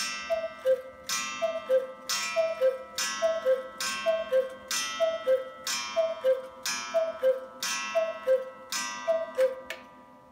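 August Schwer 8-day Black Forest cuckoo clock calling the hour: the cuckoo sounds its two-note call, high then low, about once a second, each call paired with a ringing metallic strike. The calls stop near the end.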